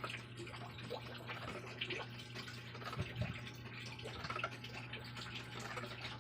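Liquid bubbling with small scattered pops and drips, over a steady low hum: chicken adobo simmering in a pot.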